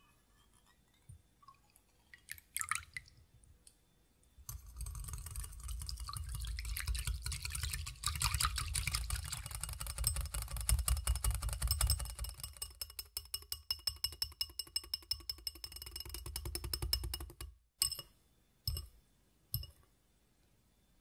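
A wire whisk beating heavy cream by hand in a glass bowl: a fast, steady clatter of strokes against the glass for about thirteen seconds, with the bowl ringing, stopping abruptly and followed by a few light knocks. The cream is being whipped to a loose, soft stage.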